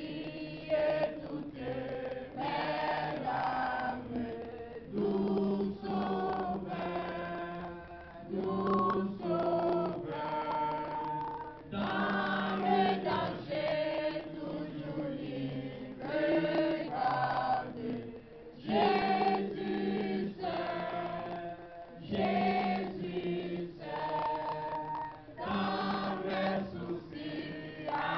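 Church congregation singing a worship song together, led by a man singing into a microphone, in phrases a second or two long.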